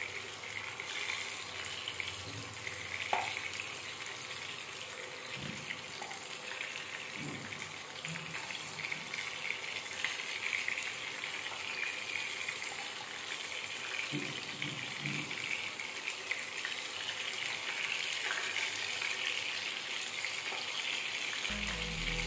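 Chicken pakoda pieces deep-frying in hot oil: a steady sizzle with a few faint knocks.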